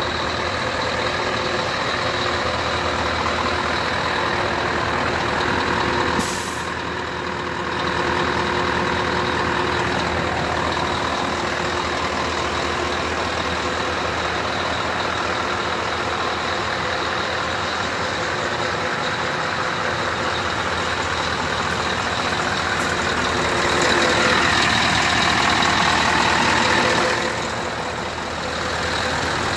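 Scania R 500's V8 diesel engine idling steadily. About six seconds in there is a short burst of air hiss, and near the end the sound grows louder for a few seconds.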